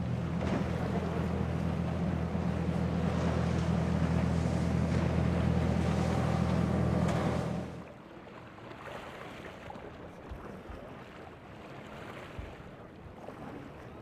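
Center-console boat's engines running at speed past the jetty, a steady drone over the hiss of spray and choppy water; it cuts off suddenly about halfway through, leaving wind on the microphone and surf with a couple of low thumps.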